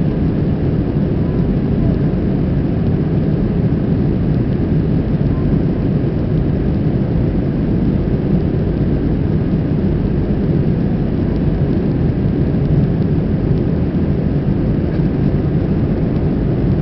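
Steady cabin noise inside an Airbus A321 in flight: a low, even rumble of the jet engines and airflow over the fuselage.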